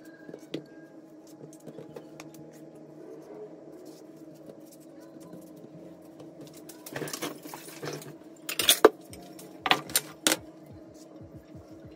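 Knife cutting melon on a board, with pieces dropped into glass containers, then a few sharp knocks of glass containers and a plate being moved on the counter, loudest about nine seconds in. A steady hum runs underneath.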